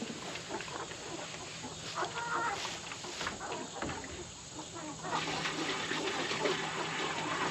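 A flock of young laying hens clucking, a few short clucks over a steady background.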